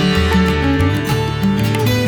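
Background music led by plucked and strummed acoustic guitar, with a bass line that moves in steps.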